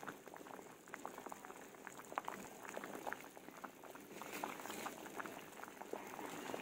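Pot of sinigang broth with milkfish and water spinach at a full boil, bubbling steadily with many small pops. From about two-thirds of the way in, leafy greens rustle as they are dropped into the pot.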